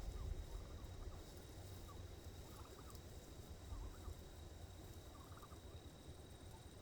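Turkeys making little squeaking calls: faint, short, high chirps in small clusters about every second or so, over a low rumble.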